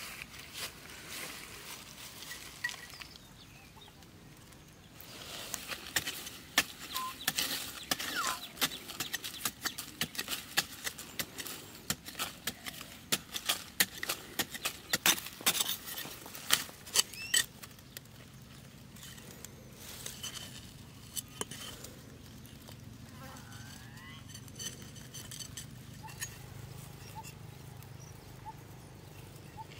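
A large knife blade strikes and scrapes into dry, hard soil in quick, irregular hits while a spider burrow is dug out, for about ten seconds. After that it goes quieter, with a low steady hum and a few faint chirps.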